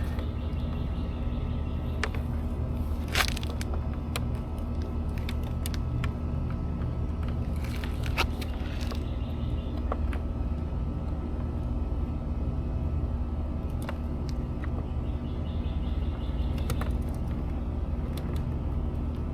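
A steady low mechanical hum, with a few sharp clicks and knocks from handling work on the spa's controller housing. The loudest click comes about three seconds in and two more around eight seconds in.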